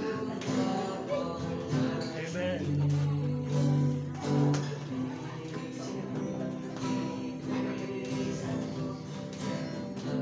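Acoustic guitar strummed, accompanying a voice singing a slow worship song with held notes.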